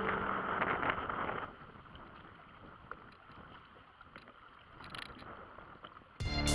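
Background music dies out at the start, giving way to wind and water noise on an open boat for about a second and a half, then near quiet with a few faint ticks; the music comes back in loudly just before the end.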